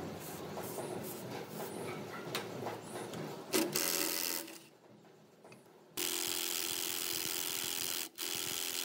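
Cordless power driver with a socket running on the rusted bolts of a planer cutter head. There is a short burst a few seconds in, then a steady run of about two seconds, a brief stop, and a shorter run at the end. Before the first burst there is rougher, uneven handling noise of work on the machine.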